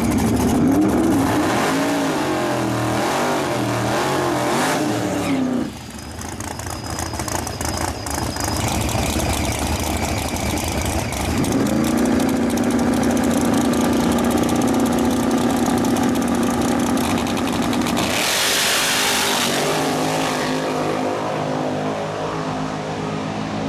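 Fox-body Mustang drag cars' engines revving. The pitch rises and falls unevenly at first, then a car holds a steady high rev on the starting line for several seconds. About 18 seconds in comes a loud burst of engine noise as the cars launch down the track.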